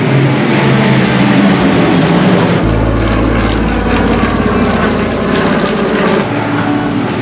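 WWII piston-engined bombers flying overhead, their radial engines and propellers droning steadily. The drone changes abruptly about two and a half and six seconds in, as separate clips of different planes follow one another.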